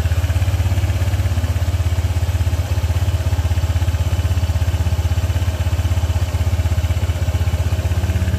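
Honda ADV 160 scooter's single-cylinder engine idling steadily from a cold start, with an even, rapid pulse. The cold-start knocking it used to make has been repaired.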